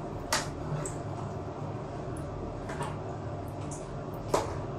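Tongs clacking and scraping against a cooking pot while noodles are tossed: a sharp clack just after the start and another near the end, with fainter clicks between, over a steady low hum.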